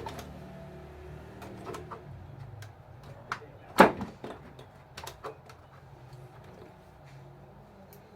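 Scattered light clicks and knocks of small parts of an RC bulldozer being handled during repair, with one sharper knock about four seconds in.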